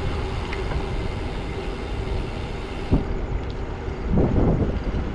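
Wind rushing over the microphone and tyre noise of a bicycle rolling along a paved path, as a steady low rumble with gusts swelling near the end. A single sharp knock about three seconds in.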